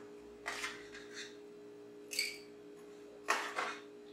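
Metal spoon scraping and scooping half-frozen milk in a metal pot and filling an aluminum milkshake cup: a few short scrapes and clinks, one with a brief ring about two seconds in.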